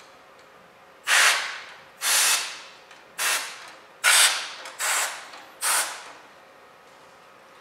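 Short blasts from a can of compressed air through its straw nozzle: six sharp hisses about a second apart, each cut off and fading quickly, as dust is blown out of a computer's vent grille.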